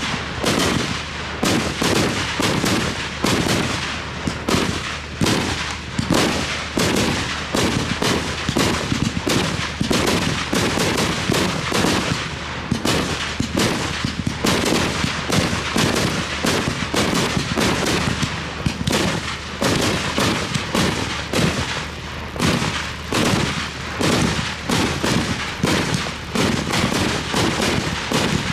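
Fireworks display: a dense, continuous barrage of shells and cake shots bursting, several sharp bangs a second with crackling between them.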